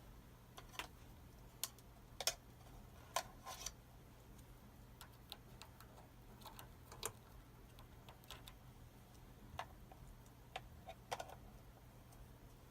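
Faint, irregular clicks and taps from small tools being handled, about a dozen spread unevenly, over a low steady hum.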